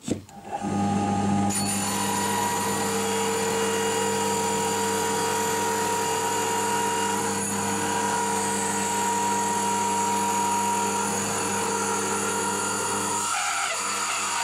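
A drill press motor starts up and runs steadily with a whine. A large rotary cutter grinds into an MDF board from about a second and a half in, adding a high, scraping hiss over the hum.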